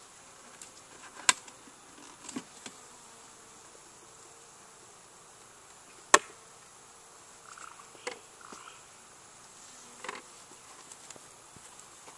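Honeybees buzzing around a hive, with a few sharp plastic clicks and knocks from syrup-feeder bucket lids being handled. The loudest snap comes about six seconds in, another a little after the first second.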